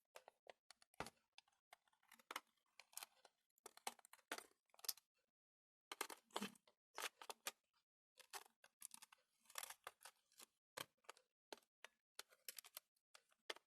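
Faint, irregular sticky clicks and crackles of homemade jelly slime with glitter and sequins being worked by hand, with a short pause about halfway through.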